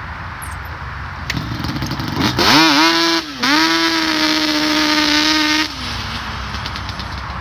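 Yamaha Banshee quad's 350 cc two-stroke twin pulling away under hard throttle: the revs climb sharply about two seconds in, cut out briefly, then hold a high steady note for about two seconds before the throttle is let off and the engine drops back to a low steady running sound.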